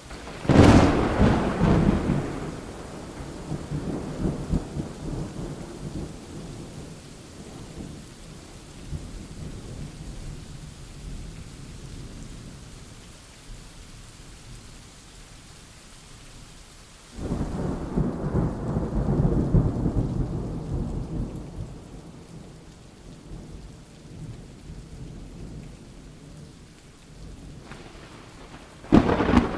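Thunderstorm: thunder peals over steady rain. A sharp clap about half a second in rolls off into a long low rumble, a second rumble breaks in suddenly about halfway through, and a third clap comes near the end.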